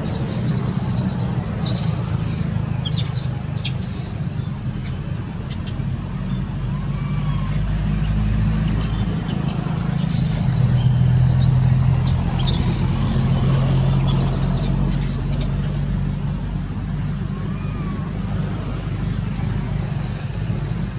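Low, steady engine rumble of a motor vehicle running nearby, swelling to its loudest about halfway through and then easing off. Short, faint high chirps and squeaks come and go over it.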